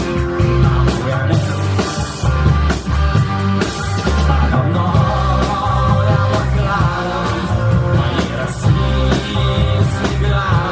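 A rock band playing a song at full volume, with drums and bass keeping a steady beat.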